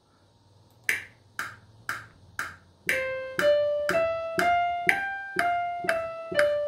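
A metronome clicks four times, evenly about half a second apart, as a count-in. Then a digital keyboard with a piano-like sound plays single notes one per beat, stepping up a scale and back down, with the click still sounding on each beat.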